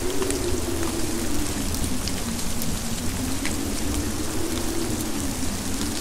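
Winter storm wind: a steady rushing of wind with a low howling tone that slowly sinks and rises again, and scattered light ticks over it.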